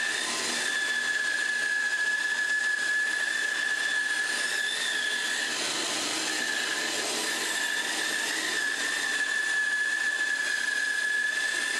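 Shopsmith 11-inch bandsaw cutting a curved pattern through a wooden block, with a dust collector running alongside: a steady high whine over the hiss of the blade in the wood.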